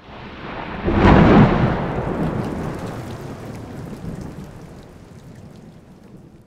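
A thunderclap breaks about a second in and rumbles away under steady heavy rain. The rain and thunder fade out gradually toward the end.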